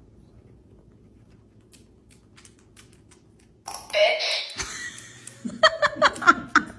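Faint ticking of a dog's nails on a hard floor, then about three and a half seconds in a recordable dog talk button is pressed and plays back a short recorded word through its small speaker. A person's laughter follows, in short repeated bursts.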